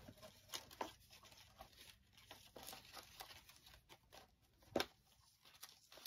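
Faint rustling and handling of paper as printed images are sorted through, with small clicks and one sharp tap a little before five seconds in.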